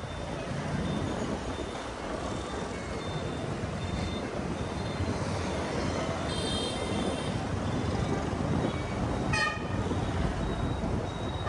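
Busy street traffic heard from a moving motorcycle: a steady rumble of engines, tyres and wind. Vehicle horns toot briefly about six and nine seconds in, and a faint high beep repeats in the background.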